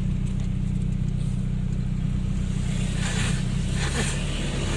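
Car engine and road noise heard from inside the moving car's cabin: a steady low hum. About three seconds in, a brief hissing rush swells and fades.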